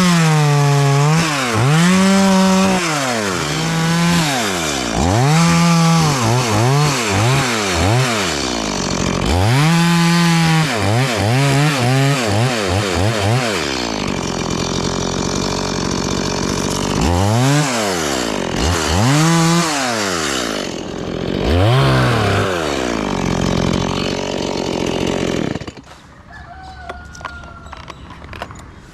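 Chainsaw cutting into a coconut palm, its engine revving up and falling back again and again, with steadier stretches under load. It cuts off abruptly near the end.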